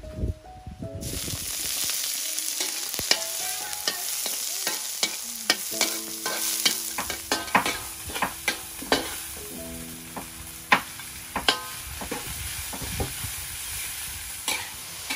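Meat stir-frying in a hot wok, with a steady sizzle that starts abruptly about a second in. A metal spatula scrapes and clanks against the wok at an irregular pace throughout.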